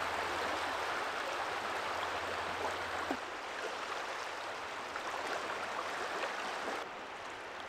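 Small waves lapping and washing over the stones and pebbles at the sea's edge, a steady wash of water that eases a little near the end.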